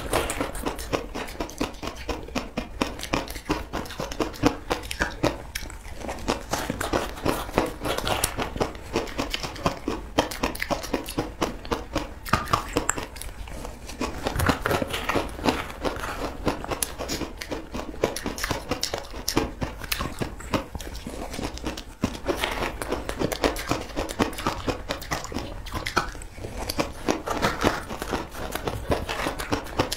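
A person chewing mouthfuls of crushed ice close to the microphone: dense, rapid crunching and crackling, with a spoon digging into the icy mass in the bowl.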